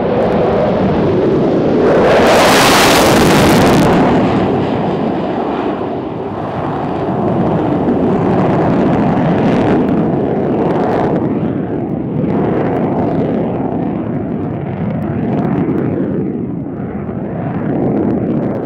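F-16 fighter's single jet engine in afterburner, a loud roar as the jet lifts off and pulls up into a vertical climb. It is loudest and harshest about two to four seconds in, as the jet passes closest, then runs on with swells and dips as it climbs away, and cuts off suddenly at the end.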